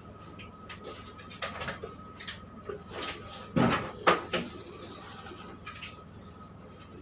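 Hands scrubbing shampoo lather into a bulldog's coat in a stainless-steel tub, with scattered rubbing and knocking sounds and two loud knocks a little past halfway, over a steady hum.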